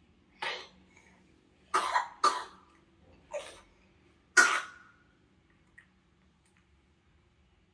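Coughing from someone who is sick: about five short, harsh coughs in the first five seconds, two of them close together near the two-second mark and the last one the loudest.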